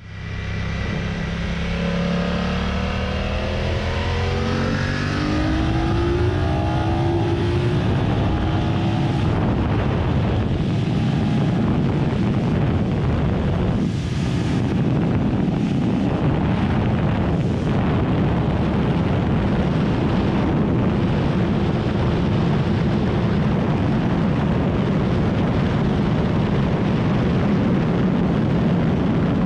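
BMW F 900 R's 895 cc parallel-twin engine at full throttle, rising in pitch through several quick upshifts over the first eight seconds or so. It then holds near top speed, above 200 km/h, where a steady wind rush over the microphone covers most of the engine.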